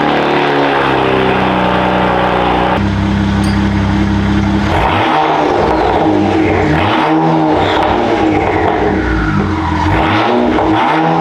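Car engine revving through its exhaust: the pitch falls off at the start, holds steady for a couple of seconds, then is blipped up and down again and again from about five seconds in.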